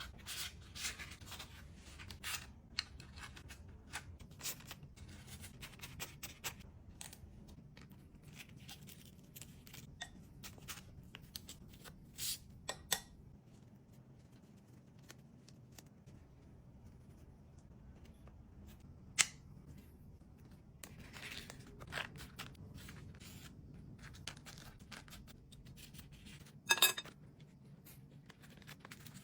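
Kitchen handling sounds during food preparation: scattered clicks, rustling and snipping or tearing, with a few sharper knocks, over a low steady hum.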